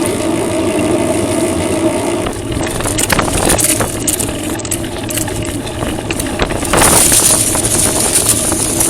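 Strong wind blowing across the microphone during a bike ride, a steady rushing noise with gusts swelling about three seconds in and more strongly about seven seconds in.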